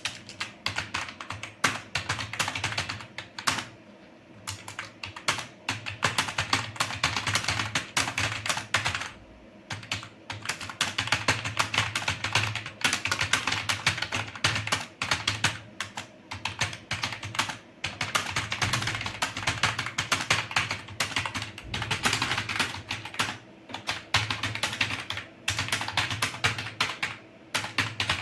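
Fast touch-typing on an old, cheap computer keyboard: rapid runs of clattering keystrokes, around 58 words a minute, broken by brief pauses every few seconds. The keyboard is noisy and rattly.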